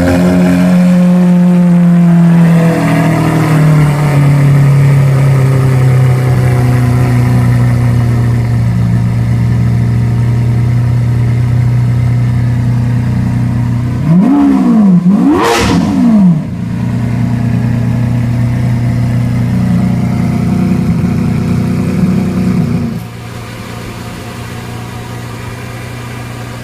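Lamborghini Aventador's 6.5-litre naturally aspirated V12 idling at a raised idle that settles lower over the first few seconds. About halfway through the engine is revved twice in quick succession, then it returns to a steady idle. The sound gets quieter a few seconds before the end.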